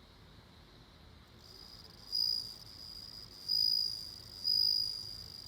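Japanese bell cricket (suzumushi) singing: a high, ringing trill that starts about a second and a half in, swells loud three times, and cuts off suddenly near the end.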